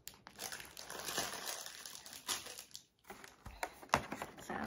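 Crinkling of a small plastic blind bag being handled, then rustling of the cardboard toy packaging with a sharp tap a little before the end.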